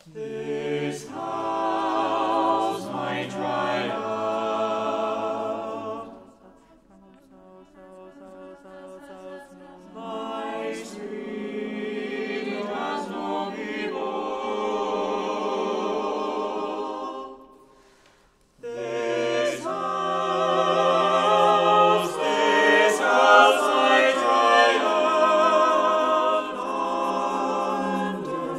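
A double choir sings a cappella, holding chords that shift slowly, in long phrases. The sound thins out about six seconds in, swells again, and breaks off briefly near eighteen seconds before returning louder.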